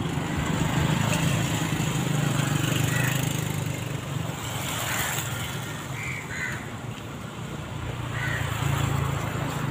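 Street traffic: a low engine rumble from passing vehicles, louder in the first few seconds and again near the end, with a few short high chirps over it.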